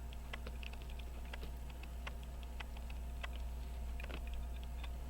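Faint, irregular light clicks of small tools handling the parts of a pocket watch movement, over a steady low hum.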